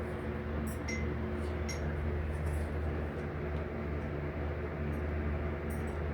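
Steady low electrical hum and hiss of room tone, with a few faint high ticks.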